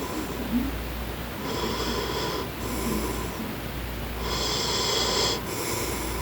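A man snoring in his sleep: two long, rasping snoring breaths, one about a second and a half in and one about four seconds in.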